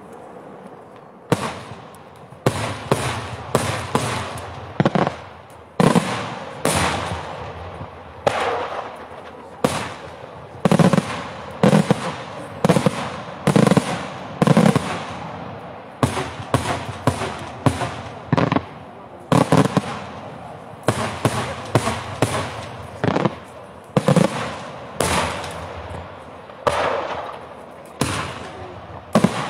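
Daytime fireworks: aerial shells bursting overhead in a rapid run of loud bangs, roughly one or two a second, each trailing off in echo. The first bang comes about a second in, after a short lull.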